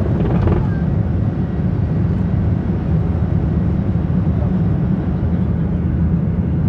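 A Boeing 737-700's CFM56-7B turbofan engines at climb power, heard from inside the cabin at a window seat over the wing during the climb-out just after takeoff: a steady, deep, loud drone.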